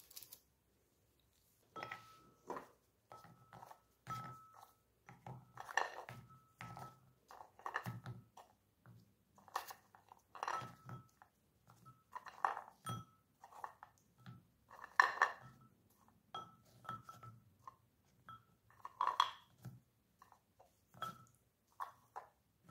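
Baked date-filled biscuits being handled and set into a glass bowl and onto a china plate: a run of light, irregular knocks and clinks against glass and china.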